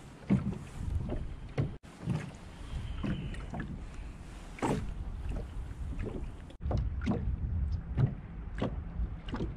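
Water lapping against the hull of a small plastic boat, with scattered knocks and clicks from handling on board.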